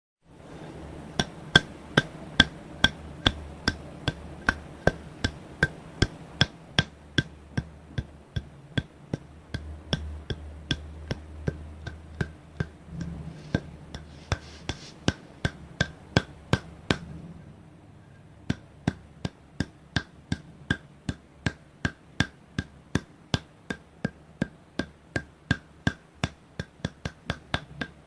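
Repeated slaps on the soles of the feet, sharp even strikes about two a second, with a brief pause about two thirds of the way in. A low hum runs under the first part.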